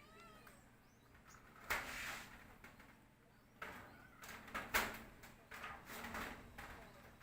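A cat's short meow trailing off at the very start, then a few scattered knocks and clatters, the sharpest about two-thirds of the way through.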